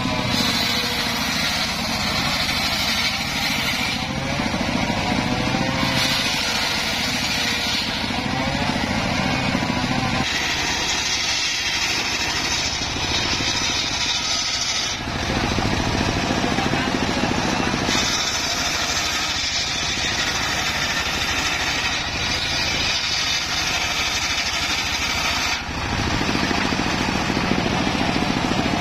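Homemade engine-driven circular saw bench running steadily and ripping acacia planks. Its tone shifts every few seconds, and the bright high part of the sound comes and goes.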